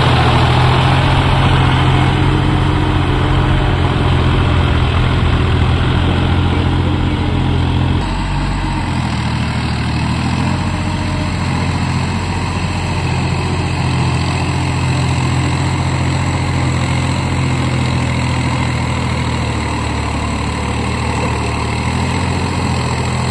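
Massey Ferguson 4WD tractor's diesel engine running steadily under load while it drives a rotary tiller through wet, muddy field soil. The sound drops slightly about eight seconds in.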